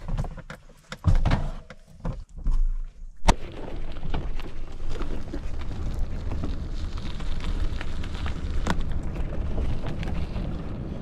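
Knocks and thumps of a bicycle being lifted out of the back of an SUV, then, after a sudden cut about three seconds in, the steady rushing noise of riding a bicycle down a gravel road: tyre noise and wind on the camera.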